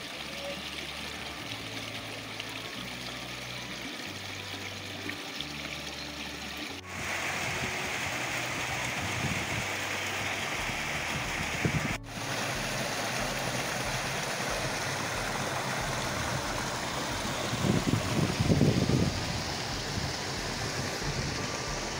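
Steady rushing of a stream and small waterfall pouring over limestone rocks, louder and brighter from about a third of the way in. Near the end there is a brief burst of low rumbling.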